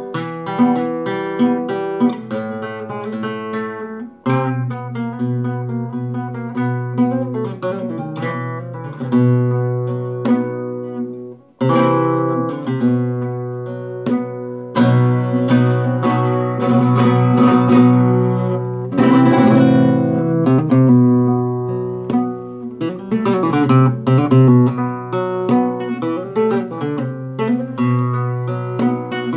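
Solo flamenco guitar playing a seguiriyas on an old Höfner nylon-string guitar: picked melody and bass notes mixed with strummed chords. The playing breaks off briefly about four seconds in and again about eleven seconds in.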